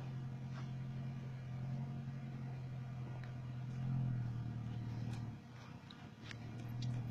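Suzuki Carry van's engine running steadily under load as it drives up a muddy dirt track. It swells about four seconds in, fades briefly just after five seconds, then comes back.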